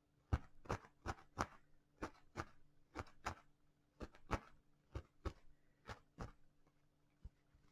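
Felting needle stabbing again and again through wool fibres into a foam felting pad: a run of faint soft taps, about two or three a second, stopping about six seconds in.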